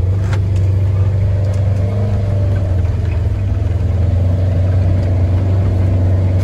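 Vehicle engine running at a steady speed while driving, a constant low hum.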